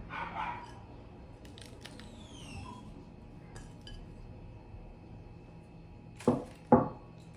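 Chocolate wafer biscuits being crumbled by hand out of a crinkly clear plastic tray, with faint crackling and small clicks. Near the end come two sharp clinks about half a second apart, against the glass dessert bowl.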